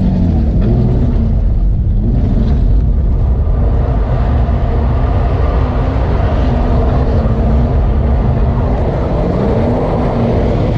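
Car engine running under a heavy low rumble, its pitch rising and falling as the car, its differential welded, is driven through skids and donuts.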